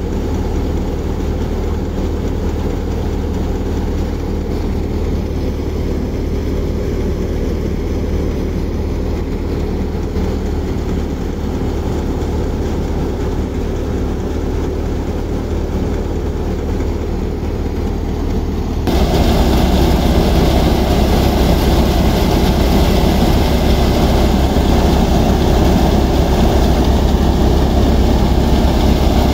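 Tractor-driven grain thresher running steadily, with the Fiat tractor's engine pulling it under load and a strong low hum. About two-thirds of the way through, the sound gets suddenly louder and brighter.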